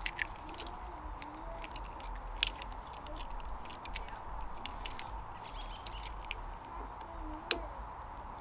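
Light metallic clicks and ticks of a hand tool working loose the mirror mount on a motorcycle handlebar, with a sharper click about two and a half seconds in and another near the end, over a steady background hum.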